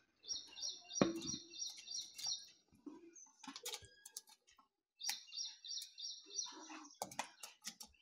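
A bird chirping in quick repeated high notes, in two bouts of about two seconds each, over soft clicks and taps as pieces of dosa are dropped into a clay pot of curry.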